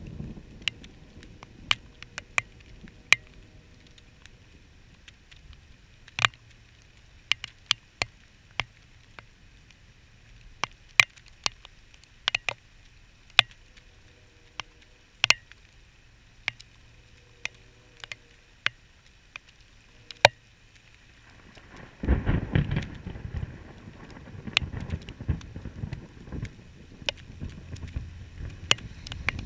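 Scattered sharp ticks of raindrops striking the camera housing. About 22 seconds in, a sudden loud, deep rumble of thunder breaks in and rolls on, rising and falling.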